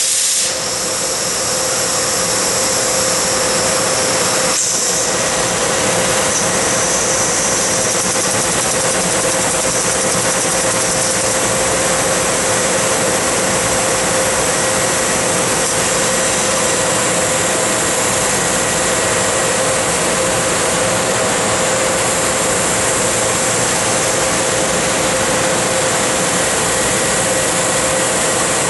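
Tanaka 6 kW laser cutting machine cutting 1-inch mild steel: a steady hiss of assist gas at the cutting head over a constant machine hum, with a brief dip about five seconds in.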